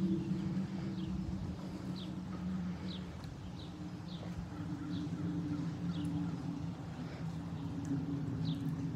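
A steady low mechanical drone, like a distant motor or engine, wavering slightly in pitch. Over it a small bird gives short, high, falling chirps, roughly one a second.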